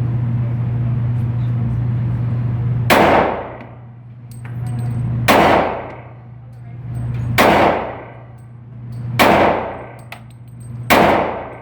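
Five handgun shots fired slowly, roughly two seconds apart, each a sharp crack with a short ringing tail. A steady low hum drops away after each shot and slowly comes back.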